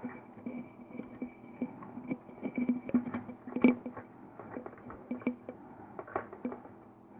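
Irregular small clicks and taps of hands handling and fitting parts of an opened electric room heater, as a tube is pushed into place, over a faint steady hum.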